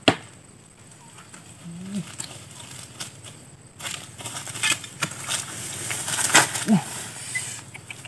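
Tall grass and dry undergrowth rustling and crackling under someone's footsteps, louder from about halfway through as the walker comes closer.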